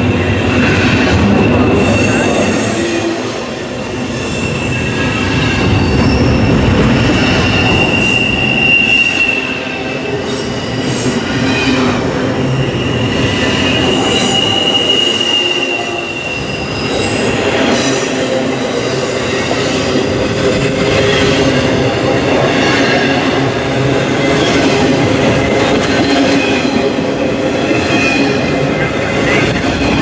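Freight cars of a CSX train rolling past on the rails: a steady rumble of wheels on track with a thin high-pitched wheel squeal that comes and goes, loudest about a third of the way in and again about halfway.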